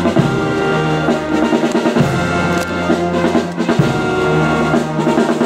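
Brass band with drums playing: held brass chords that change every couple of seconds, with a drum stroke on each change.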